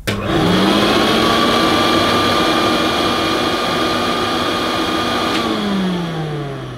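1969 Hoover Dustette Model 2614B handheld vacuum cleaner's mains motor switched on with a click, spinning up within half a second to a steady whine and running smoothly, the first test of the vintage machine. About five seconds in there is a click and the motor winds down, its pitch falling.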